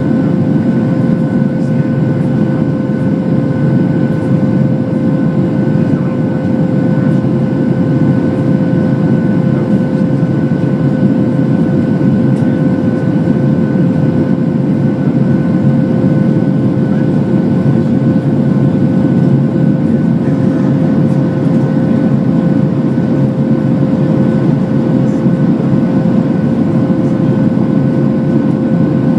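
Steady cabin noise inside a Boeing 737-600 in the climb after takeoff: a dense, even low rush of airflow and CFM56 engines at climb thrust, with a few steady hum tones over it.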